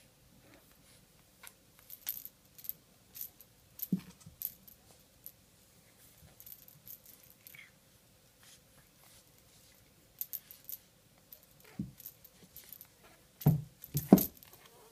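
Small bell on a felt fish cat toy jingling in short, irregular tinkles as a kitten bats and grabs at it. A few soft thumps of the kitten on the wooden floor, the loudest two close together near the end.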